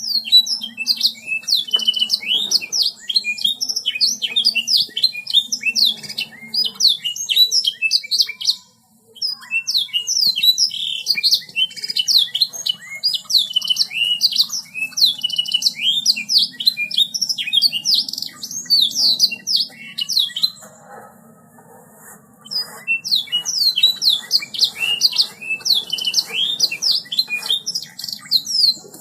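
Domestic canary singing in long runs of rapid high chirps and trills, breaking off briefly about nine seconds in and again for a second or two around twenty-one seconds in, over a faint steady low hum.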